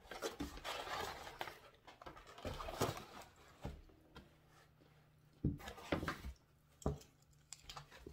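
Cardboard pizza box and a plate of chicken wings being handled on a table: rustling and scraping in the first few seconds, then several separate knocks as things are set down.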